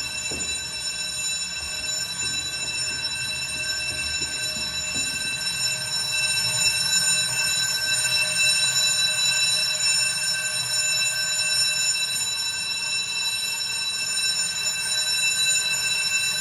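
Building alarm sounding continuously: a steady, unbroken high electronic tone, with a low hum underneath.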